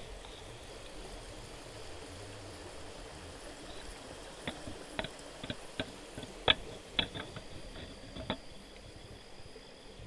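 Jaguar nosing and bumping a trail camera at close range: a run of sharp clicks and knocks, the loudest about six and a half seconds in, over a steady hiss.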